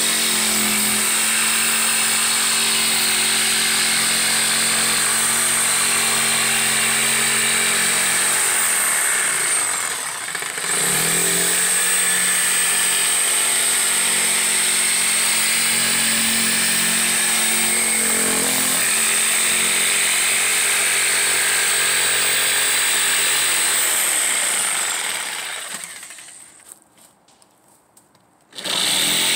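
Corded jigsaw running steadily as its blade cuts through a wooden board. It dips briefly about a third of the way through. Near the end it winds down and stops for about two seconds, then starts up again just before the end.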